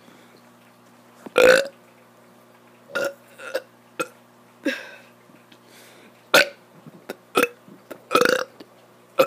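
A child burping over and over: a string of short burps, with a long, loud one about a second and a half in and further strong ones near the middle and toward the end.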